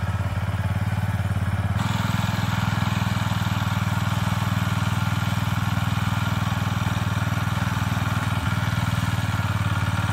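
Walk-behind power tiller's small engine running steadily while it tills the soil, a constant low engine hum.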